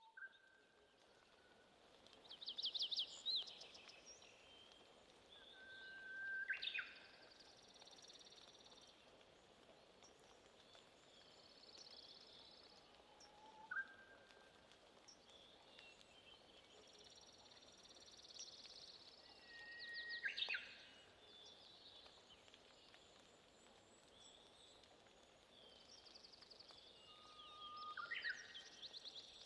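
Wild birds singing in a forest, faint: scattered trills and short whistles, with one rising phrase heard three times, over a soft steady hiss.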